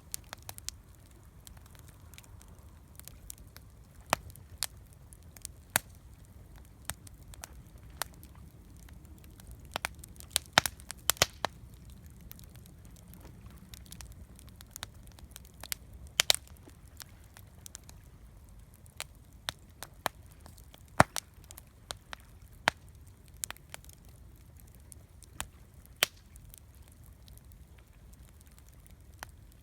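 Wood campfire crackling, with sharp pops at irregular intervals and a cluster of them about ten seconds in, over a steady low rumble.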